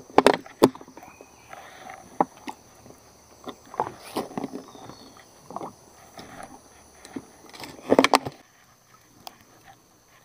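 Irregular knocks and clatter of fishing gear being handled, with a cluster of louder knocks about eight seconds in.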